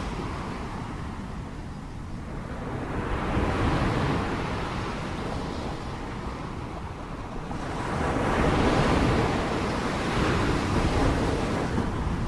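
Sea waves surging in and washing back, with two swells of surf: one building about three seconds in and a louder one about eight seconds in, over a constant low rumble.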